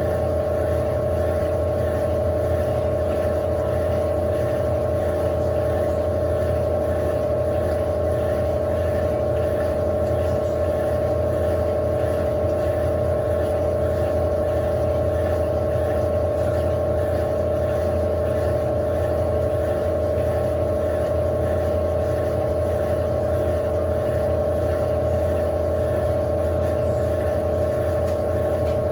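Electrolux Silent Control LAC16 16 kg top-loading washing machine running near the end of its wash cycle: a steady motor tone over a low hum, unchanging throughout.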